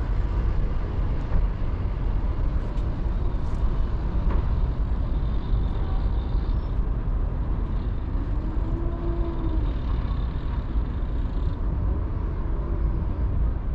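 Steady deep rumble of wind on the microphone beside open water, with a faint distant engine hum that rises and falls in pitch twice in the second half.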